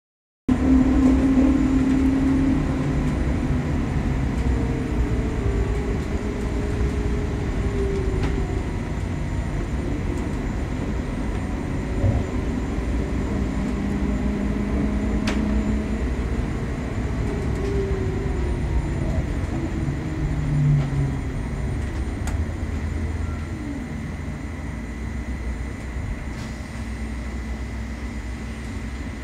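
Trolleybus electric traction motor whining while the bus drives, heard from inside the passenger cabin. The whine's pitch rises and falls with the bus's speed, over a steady rumble from the running gear.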